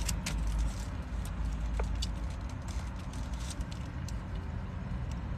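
A steady low rumble inside a car, with a few faint clicks and rustles as a paper-wrapped burrito is handled and chewed.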